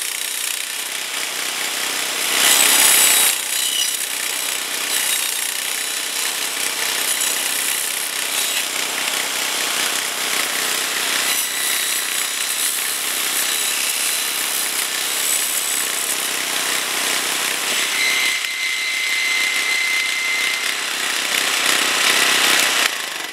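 DR walk-behind trimmer's 8.75-horsepower engine running hard, driving a 12-inch Beaver Blade chainsaw disc that chews through privet stems. The sound is loudest about three seconds in and drops away just before the end.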